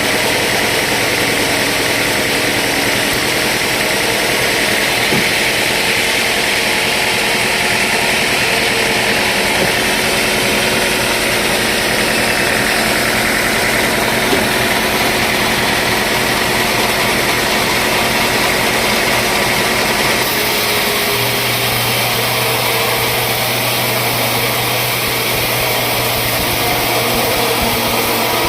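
Sawmill machinery running steadily. About twenty seconds in, its tone shifts and a new low hum sets in.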